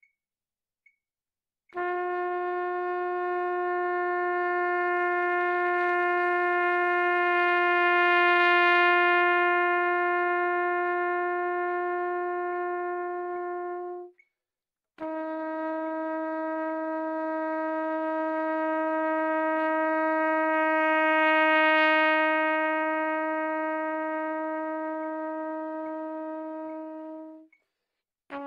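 Trumpet playing two long held notes, each swelling louder and then fading away evenly, with a short breath between them about halfway through; the second note is a little lower than the first. A metronome clicks faintly at 72 beats a minute before the first note comes in.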